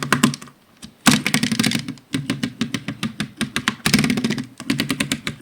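Rapid, irregular clicking and clattering of small hard objects, in several runs of dense clicks.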